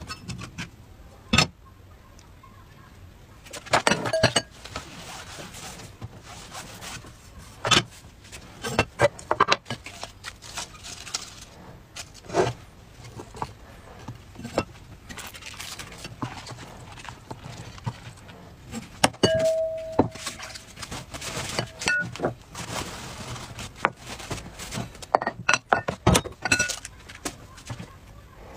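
Kitchen handling sounds: irregular taps, clicks and light clatters of hands working with food and kitchenware on a plastic cutting board. A short ringing note comes about twenty seconds in.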